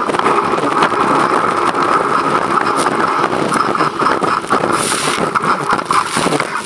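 Stand-up racing jet ski running flat out across choppy water, its engine a steady high drone under the rush of water spray and wind buffeting the microphone. A brief louder burst of hiss comes about five seconds in.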